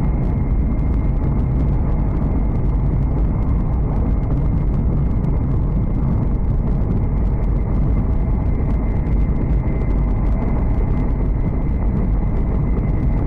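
Running noise of a Hokuriku Shinkansen (E7/W7-series) train at speed, heard inside the passenger cabin: a steady, deep rumble with a faint thin whine above it.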